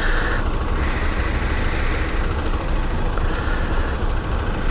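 Chinese motorcycle riding, its engine running under a steady rush of wind noise on the microphone.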